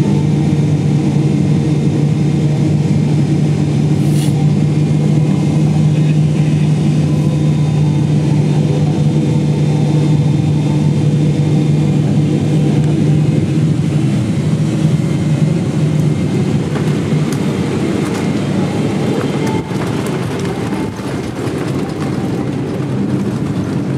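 Steady low mechanical drone of a running vehicle, with a strong hum that fades about two-thirds of the way through, leaving a rougher rumble with a few faint clicks.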